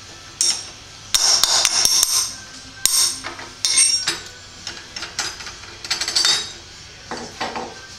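Sharp metallic clanks and clinks as the end mill's tool holder is released and pulled out of the CNC bed mill's spindle for a tool change. There is a quick cluster of knocks about a second in, and more strikes near 3, 4 and 6 seconds.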